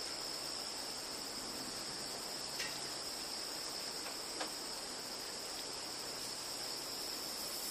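Steady insect chorus: a continuous high-pitched trill that holds level throughout, with a faint click or two.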